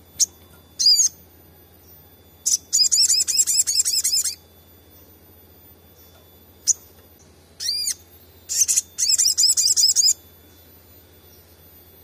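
Olive-backed sunbird singing: a few short, high chips, and two bursts of fast, high twittering trill, each just under two seconds long, about two and a half seconds in and again past the middle.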